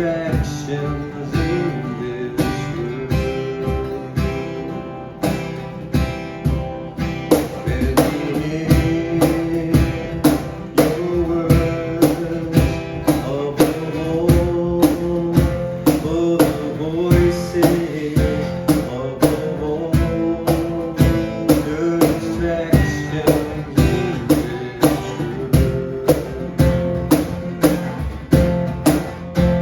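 Contemporary worship song played by a band: acoustic guitar strumming, with a steady drum beat that becomes regular about seven seconds in.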